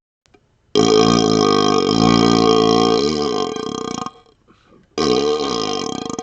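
A man burping through a hollow vacuum extension tube, the tube's resonance ringing steadily over the wavering pitch of the burp. One long burp of about three seconds is followed by a shorter one starting about five seconds in.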